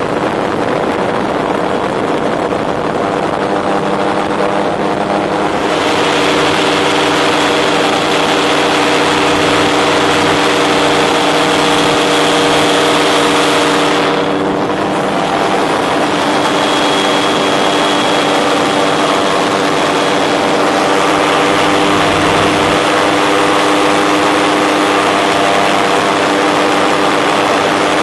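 Tandem Dominator gyroplane's Rotax 914 turbocharged flat-four engine running steadily in flight, heard from the open cockpit with wind rushing over it. The wind hiss grows louder about six seconds in and briefly fades around the middle.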